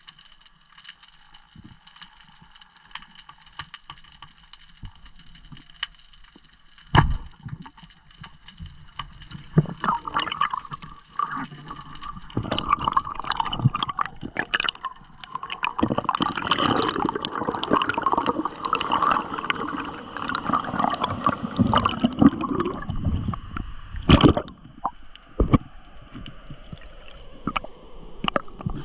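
Underwater water sound on a spearfishing dive: faint steady high tones at first, a sharp knock about a quarter of the way in, then a long, loud stretch of gurgling and sloshing water. A few more sharp knocks come near the end.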